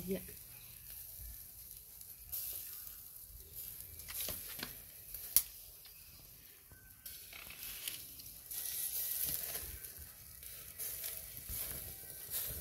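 Small whole squid sizzling on a wire grill over glowing charcoal as they are basted with sauce. The hissing swells and fades, with scattered pops and one sharp crack about five seconds in as the loudest sound.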